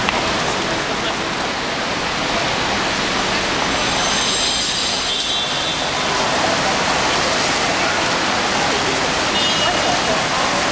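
Steady roadside ambience: traffic noise mixed with the splashing of a small fountain, with voices of passers-by. A brief high thin whine comes about four to five seconds in.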